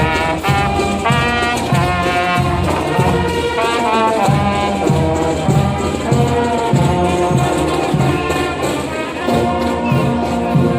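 Brass band music, trumpets and trombones playing a melody over a steady drumbeat.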